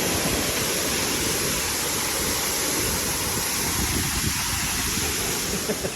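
Steady rush of a waterfall, Khlong Lan Waterfall, with a low rumble underneath. It drops away suddenly just before the end.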